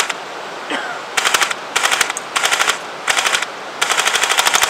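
M41 electric airsoft gun (AEG) firing on full auto in five short bursts, each a rapid rattle of shots, the last the longest.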